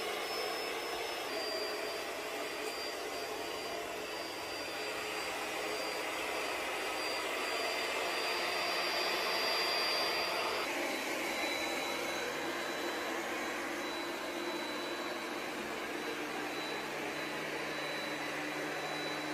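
Robot vacuum-mop running in combined vacuum-and-mop mode: a steady suction-fan noise with a thin high whine on top. The whine shifts slightly lower about a second in and again about ten and a half seconds in.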